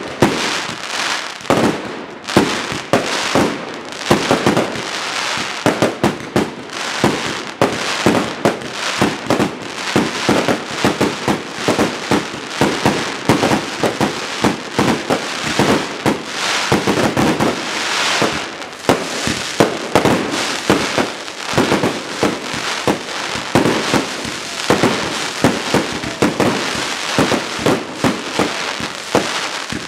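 Aerial fireworks display: many shells bursting in rapid, overlapping bangs with no let-up, over a continuous crackle that grows denser from about halfway through.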